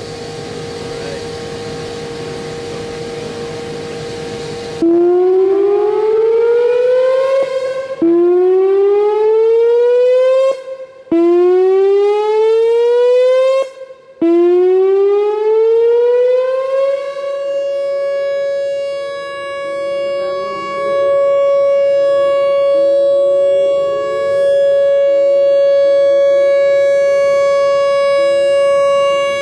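Whelen WPS-4004 electronic outdoor warning siren starting its tone after a quieter steady tone. About five seconds in it gives three rising wind-up sweeps that each cut off abruptly, then a fourth that rises and holds as one loud steady tone. The tone swells and fades slightly as the rotating speaker head turns.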